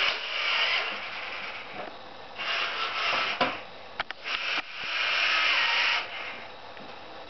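Ride-on toy excavator's digging arm being worked by its hand levers: three bursts of harsh grating noise, each about a second long, with a few sharp clicks around four seconds in.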